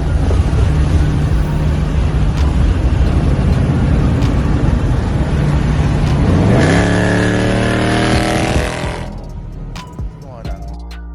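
Dodge Charger's 5.7-litre Hemi V8 running hard, then rising steadily in pitch as the car accelerates about six and a half seconds in. The sound cuts off suddenly near nine seconds.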